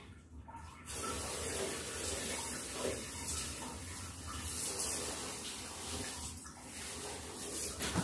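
Water running steadily in a small tiled bathroom, starting about a second in.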